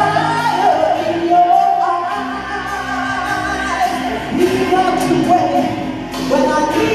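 A woman singing a 1980s rock ballad into a handheld microphone over backing music, holding long notes.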